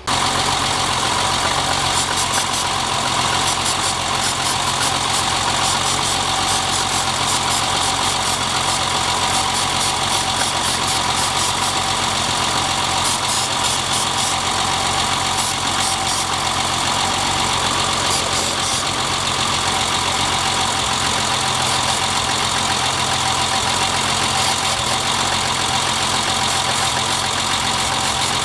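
BMW E30 engine idling steadily with a misfire; the misfire was later traced to a clogged fuel rail.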